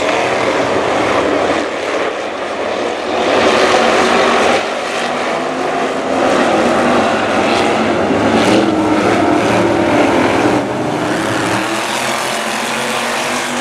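A pack of V8 street stock cars racing on a dirt oval, their engines loud and continuous, swelling and easing as the cars pass through the turns.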